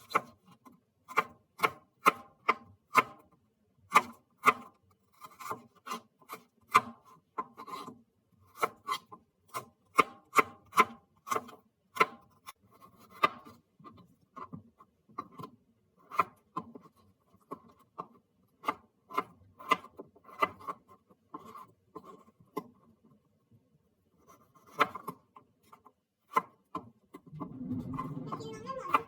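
Knife chopping on a cutting board in irregular strokes, one or two a second, with short pauses.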